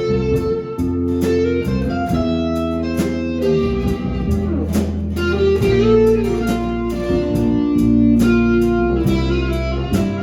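Instrumental break of a slow country-style love song: guitar leads over bass and a steady drum beat, with no singing.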